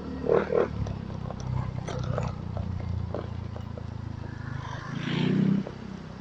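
Motorcycle engine running steadily while riding, with two short louder sounds over it, one about half a second in and a longer one about five seconds in.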